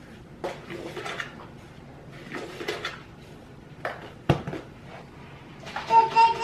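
Kitchen handling sounds as a baby bottle is taken out and dealt with: short rattles, clicks and clatter of plastic and dishes, with a sharp knock about four seconds in. A short high-pitched voice near the end.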